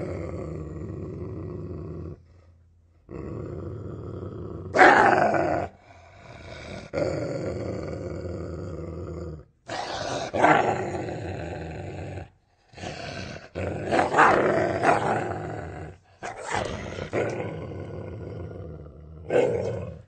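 Dog growling and snarling aggressively: long low growls broken by short pauses, with louder snarling outbursts several times.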